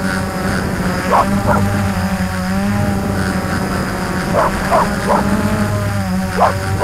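Quadcopter motors and propellers humming steadily, their pitch drifting up and down as the craft hovers and moves. A dog barks about six times, in short bursts, loosely paired, over the drone noise.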